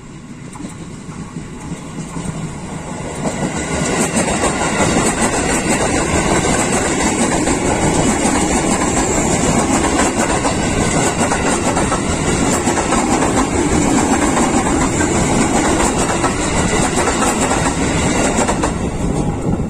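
A KRL Commuter Line electric multiple unit, an ex-JR 205 series set, approaching and passing close by. Its wheels rumble and clack over the rail joints, growing louder over the first few seconds and then holding steady while the cars go past.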